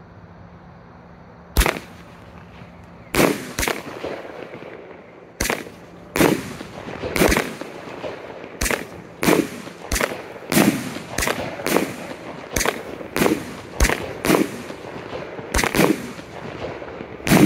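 A 25-shot firework cake firing. After a quiet moment the first shot goes off about a second and a half in, then sharp bangs follow one after another at roughly one to two a second.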